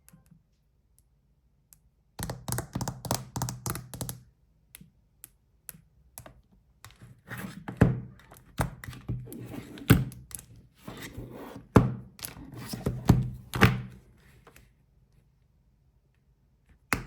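Phones being handled on a hard surface: clusters of taps, knocks and dull thunks, starting about two seconds in and again for several seconds in the middle.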